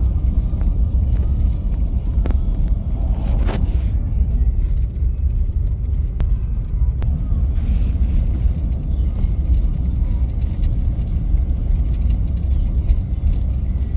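Car interior noise while driving: a steady low rumble of engine and tyres, with a few sharp clicks and a brief brighter sound about three and a half seconds in.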